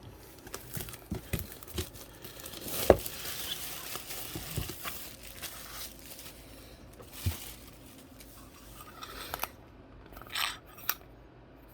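Plastic and cardboard packaging of a Pokémon card bundle being handled and picked at while being opened: scattered taps and clicks, with a stretch of crinkling rustle in the first half.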